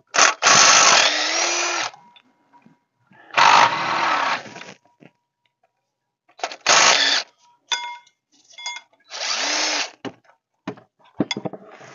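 DeWalt impact tool run in four separate bursts, backing out the water pump bolts one after another, with its motor winding down at the end of each burst. Small clicks and knocks come between the bursts.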